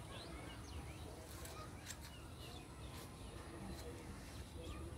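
Faint, scattered short bird chirps over a steady low outdoor rumble.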